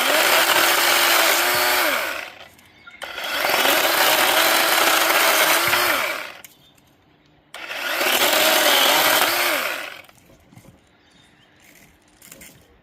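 Chainsaw run at full revs in three bursts of two to three seconds each, its pitch rising as it speeds up and falling as it drops back between bursts.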